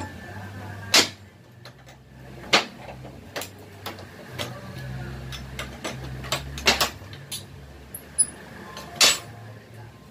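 Sharp metal knocks and clinks from hand tools working at a steel bench vise, four loud strikes at uneven intervals among lighter taps, over a steady low hum.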